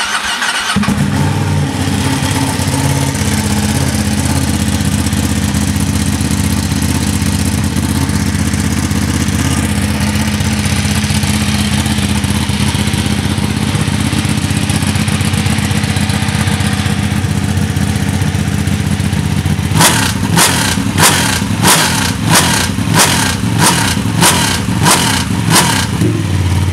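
Ducati Panigale 1199R's Superquadro L-twin engine settling into a steady idle just after starting, at about 1,500 rpm in neutral. Near the end it gets a quick series of about a dozen throttle blips, roughly two a second.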